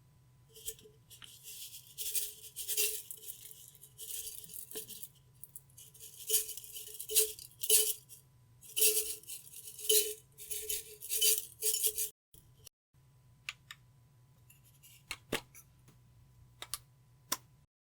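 Slime being squeezed, stretched and mixed by hand, crackling and popping in bursts. After a short break about twelve seconds in there are only a few scattered clicks.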